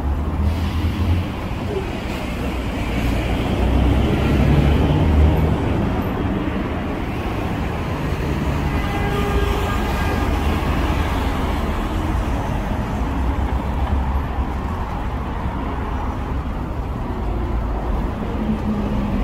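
City street traffic: a steady rumble of passing road vehicles, swelling as one goes by close about four to five seconds in.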